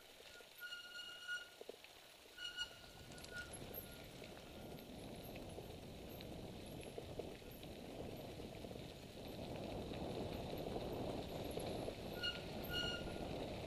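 Mountain bike rolling down a dirt singletrack: a noisy rumble of tyres on dirt and the bike rattling over bumps, growing louder from about halfway as the pace picks up. A few short high squeaks sound near the start and again near the end.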